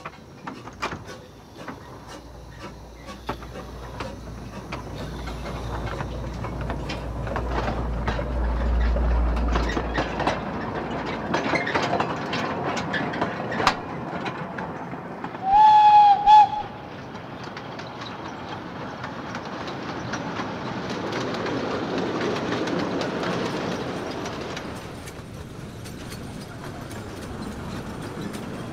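A 600 mm narrow-gauge train passing, with clicks of the wheels over the rail joints and running noise that grows, then fades. It gives one short signal blast about halfway through.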